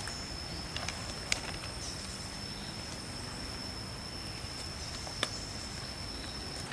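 An insect calling one steady, high-pitched tone without a break, with a few sharp clicks, such as twigs snapping, about a second in and again near five seconds.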